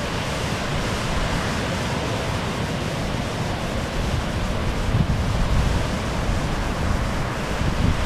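Ocean surf breaking and washing up the beach, a steady rushing hiss, with wind buffeting the microphone in low rumbling gusts that swell about five seconds in.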